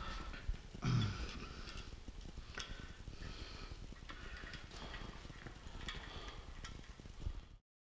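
Faint light clicks and scraping of small bolts being threaded by hand into a camshaft thrust plate on an engine block. The sound cuts off suddenly to silence near the end.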